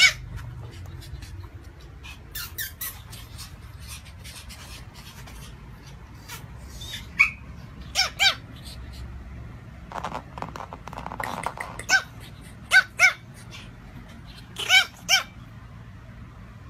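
Tiny Pomeranian puppy barking: short, high-pitched yaps, mostly in quick pairs, with a few seconds' pause between them.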